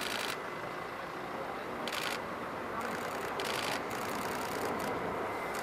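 Steady jet noise from the Boeing 777X-9's two GE9X turbofans as the airliner flies a banked pass. Several short bursts of rapid-fire camera shutter clicks start and stop over it.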